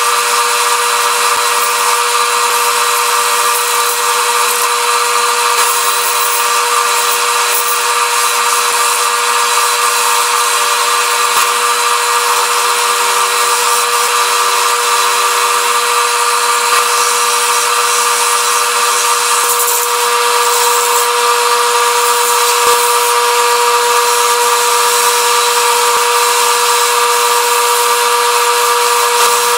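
Wood lathe running with a steady motor whine while a hand-held turning tool cuts a spinning cedar-and-blue-epoxy pen blank, giving a continuous scraping hiss.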